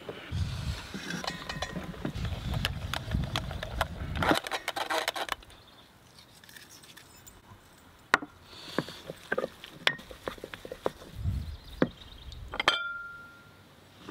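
A wooden spoon stirs and scrapes a thick mixture in a stainless steel mixing bowl, with many small clinks and knocks of the bowl and dishes on a wooden board. Near the end the metal bowl rings briefly.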